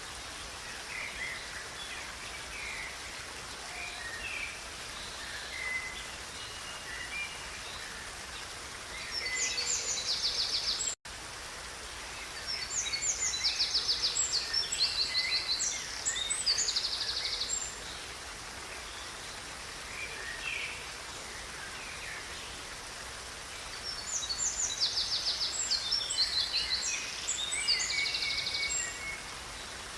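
Songbirds singing over the steady rush of a river: scattered chirps throughout, with bursts of rapid, repeated high notes about nine seconds in, again from about twelve to seventeen seconds, and near the end. The sound drops out for an instant about eleven seconds in.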